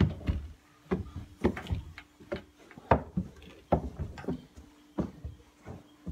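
Dull knocks and thumps of footsteps and a baby's hands and knees climbing carpeted stairs: about a dozen uneven knocks, roughly one every half second to second, over a faint steady hum.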